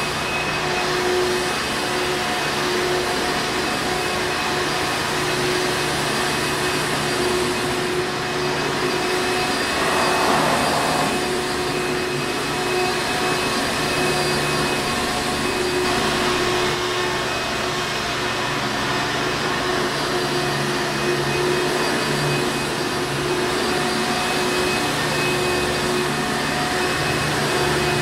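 Hoover Encore Supreme upright vacuum cleaner running steadily: a constant motor drone with a held whine on top, and a brief swell about ten seconds in.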